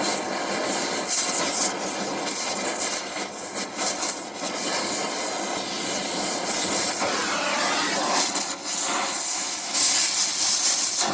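Oxy-fuel cutting torch hissing steadily as it cuts through a rusted rim bolt, with louder rushing surges as the cutting oxygen is blasted at the red-hot metal.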